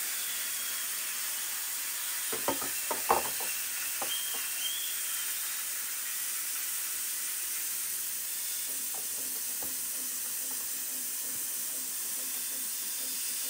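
Chicken pieces with tomato, onion and peppers sizzling in a hot, seasoned round metal pan: a steady hiss. There is a cluster of sharp clicks about two to three seconds in, and a few fainter ones later.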